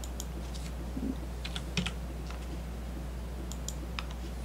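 Scattered, irregular clicks of a computer mouse and keyboard being worked at a desk, over a steady low electrical hum.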